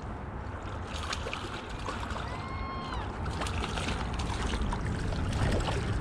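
River current rushing and lapping against bank rocks close to the microphone, with scattered splashes as a hooked brown trout is drawn to a landing net. A short high tone with overtones sounds briefly around the middle.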